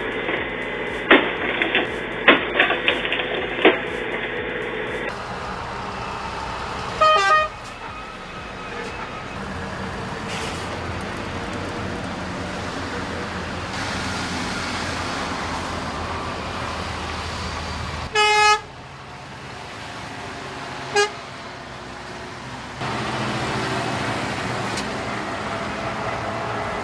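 Heavy trucks driving past with steady engine and road noise, their horns tooting: a short toot about seven seconds in, a longer one about eighteen seconds in, and a brief one about twenty-one seconds in. A few sharp clicks come in the first few seconds, before the trucks are heard.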